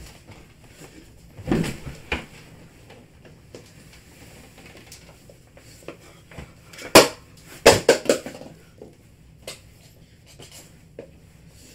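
Pillows and bedding being picked up, tossed and shuffled on a bed: rustling with a few thumps and knocks, loudest in a cluster about seven to eight seconds in.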